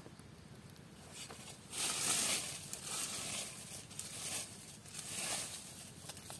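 Rustling and scraping as mushrooms are dropped into a woven plastic-strip basket and the basket is handled, in several short bursts, the loudest about two seconds in.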